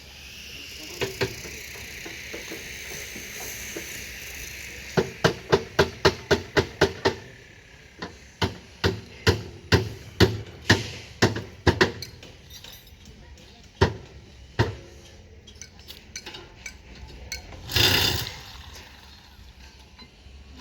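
Hammer blows on a construction site. A quick run of about nine strikes comes some five seconds in, then slower strikes about two a second, and a couple of lone blows later.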